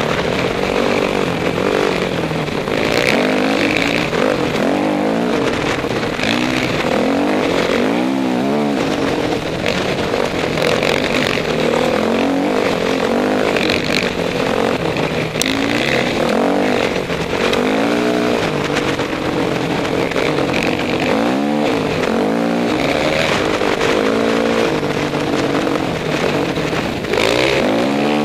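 Dirt bike engine heard close up from the bike being ridden, revving up and down continuously with the throttle as it rides a rough trail, its pitch rising and falling every second or two.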